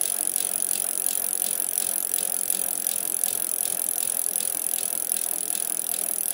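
A steady whirring, rattling hiss with regular ticks, a little over two a second, that cuts in and cuts off abruptly.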